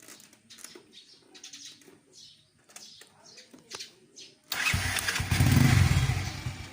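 Chinese-made motorcycle with an aftermarket stainless Apido 'chicken pipe' exhaust starts suddenly about two-thirds of the way in and is revved, a loud low exhaust rumble. Before it, birds chirp faintly.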